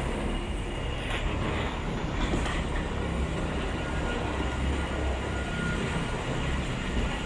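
Steady low rumble and hiss of ambient machinery noise in an airport jet bridge, with a faint steady whine in the background.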